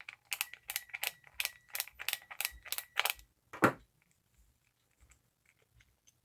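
Metal clicking and clinking from a Stanley 199 utility knife being opened to get at the spare blades inside: about ten sharp clicks at roughly three a second with a faint metallic ring, then one heavier knock.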